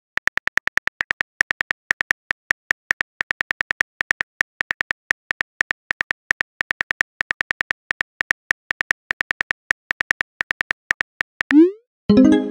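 Simulated phone keyboard clicks from a texting app as a message is typed, about five or six quick clicks a second. Near the end the typing stops and a short rising whoosh sounds as the message is sent, followed by a brief chime.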